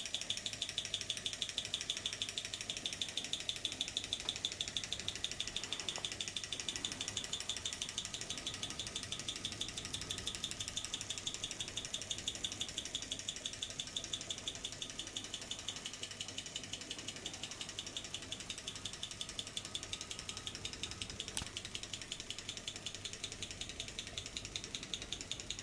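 Tarot large-scale Stirling engine running under load, driving a Baker fan by belt: a rapid, even mechanical clicking from the running linkage and fan, growing slightly fainter in the second half.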